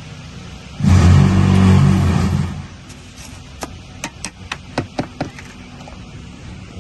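A loud machine or motor runs for about a second and a half, starting about a second in, with a deep steady hum. It is followed by a quick, irregular run of about ten sharp knocks, like hammer blows.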